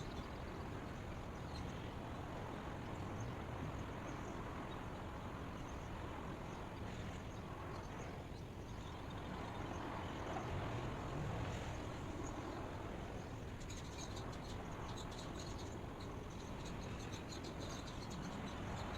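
Steady outdoor ambient hiss, with faint high chirps scattered through it that come thicker near the end.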